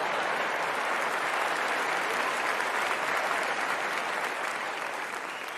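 Audience applause, steady and then slowly dying away near the end.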